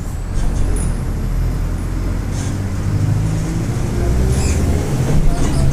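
Mercedes-Benz OF-1722M city bus's turbodiesel engine pulling under way, with a deep rumble that builds slightly and a whine rising in pitch for a couple of seconds in the middle, against the whistle of the turbo and the growl of the differential.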